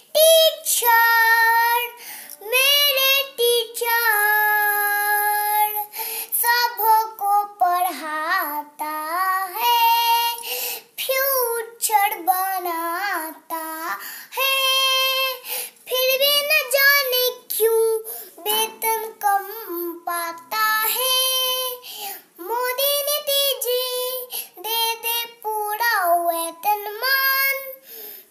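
A little girl singing a Hindi song in praise of teachers without accompaniment, her high child's voice gliding between words and holding some long notes.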